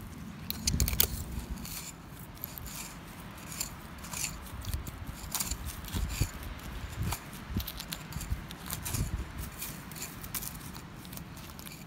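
Metal screwdriver blade scraping and prying in dry, gritty sandy soil to loosen weeds: a run of short, irregular scratchy scrapes.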